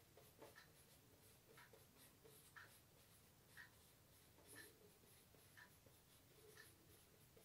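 Faint squeak and scratch of a marker pen writing on a whiteboard, with a soft tick about once a second.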